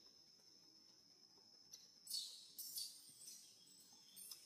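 Two short, shrill squeals from an infant macaque as its mother pushes it off the teat to wean it, about two seconds in, over a steady high-pitched insect drone.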